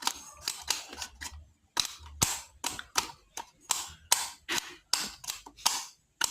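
Sharp hand strikes beating out a batuku rhythm, about four a second in an uneven, syncopated pattern.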